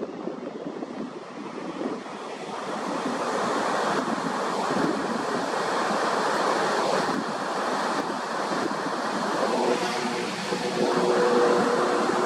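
Ocean surf rushing on the beach, swelling after a couple of seconds, with wind buffeting the microphone. Near the end a faint steady hum of two low notes joins in.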